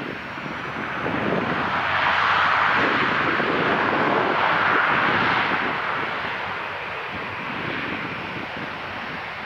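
Airliner engine noise that swells to a peak about two to five seconds in, then slowly fades.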